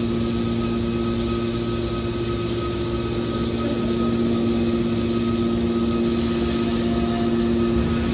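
Hydraulic metal baler running: a steady machine hum with a constant drone and no change in pitch, cutting off at the very end.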